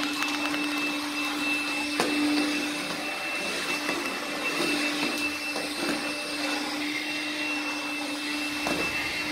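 Makita 18V cordless vacuum cleaner running steadily, a constant motor whine over the rush of suction, with a few light clicks.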